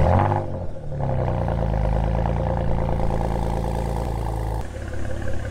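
Porsche Macan with an ARMYTRIX valved cat-back exhaust on a cold start: the start-up flare falls away in the first second, then the engine holds a steady fast cold idle. About four and a half seconds in, the idle drops to a lower, slightly quieter note.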